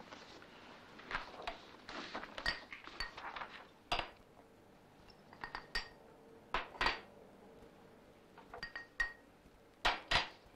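Dishes and cutlery being handled: a string of irregular, sharp clinks and rattles, some ringing briefly like china or glass.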